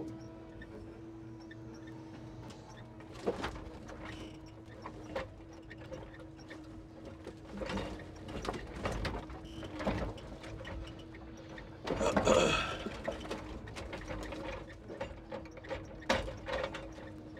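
Timber truck's hydraulic crane working logs with the grapple: a steady low hum from the hydraulics under separate knocks and clatters of logs, the loudest and longest about twelve seconds in.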